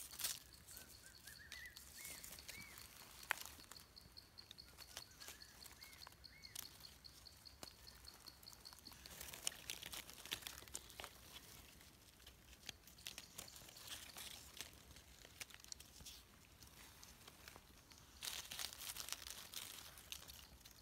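Faint crackling and rustling of dry leaf litter as hands pick and handle mushrooms on the forest floor, a little louder near the end. A thin steady high trill runs through the first half, and a bird chirps a few times.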